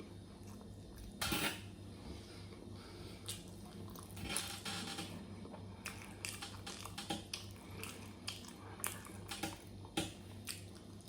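Eating at close range: cutlery clicking and scraping against a dish in short, irregular clicks, with a few louder scrapes and chewing sounds, over a steady low hum.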